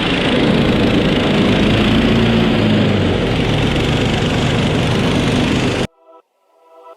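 Small engine running steadily, then cut off abruptly about six seconds in.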